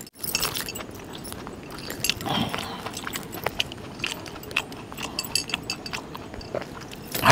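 A man eating mutton curry with his fingers: chewing and mouth smacking, with scattered small clicks and metal clinks.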